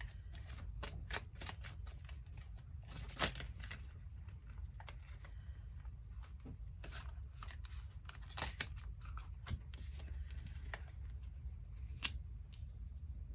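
Tarot cards being handled: irregular light clicks and snaps of the cards, the sharpest about three seconds in, about eight seconds in, and near the end as a card is laid down. A low steady hum runs underneath.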